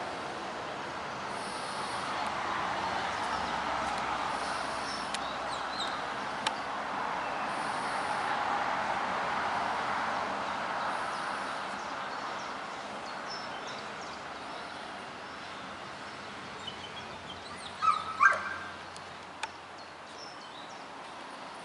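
A shepherd dog gives two short barks close together near the end, over a steady background hiss.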